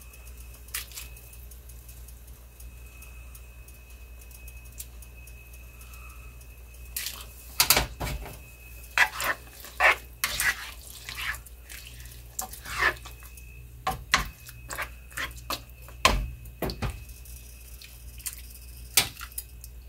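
Bean broth ladled into a pan of beans: a series of pours, splashes and clinks of the ladle on the pan between about 7 and 19 seconds in. Before that only a faint steady high whine.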